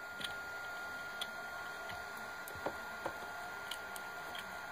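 Light, irregular clicks and taps of small plastic and metal RC differential parts being handled and pressed into the differential housing by hand, about six over a few seconds.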